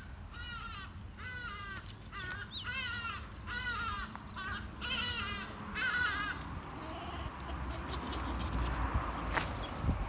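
An animal calls about seven times in a row, a wavering, cawing cry under a second apart, then stops. After that there is rustling and a single sharp click near the end.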